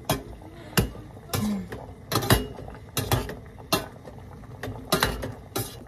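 Spoon clinking and scraping against the inside of a stainless steel cooking pot during stirring: a series of irregular sharp clinks, roughly one or two a second.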